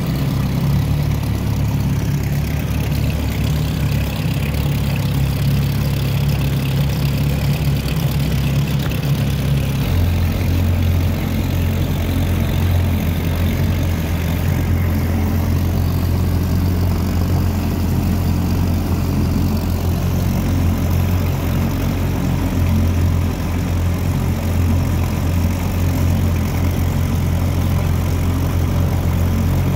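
Outboard motor running steadily, pushing a small aluminum boat along, heard close up with water and wind noise over it. Its pitch drops to a lower, steady note about ten seconds in.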